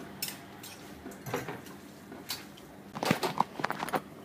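Scattered light clicks and rustles of things being handled at a kitchen sink, with a quick run of clicks about three seconds in.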